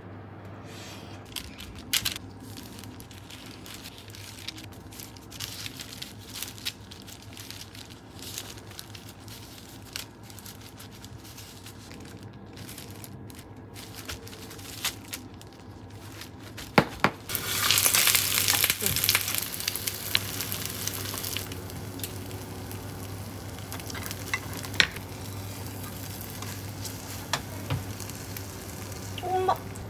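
Battered jeon frying in oil in a pan, sizzling steadily, with scattered light clicks and taps of utensils. The sizzle gets much louder for about four seconds from around 17 seconds in.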